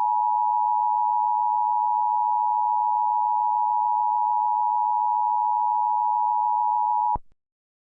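Emergency alert attention tone: one steady electronic tone near 1 kHz, unchanging in pitch and level, that cuts off abruptly about seven seconds in.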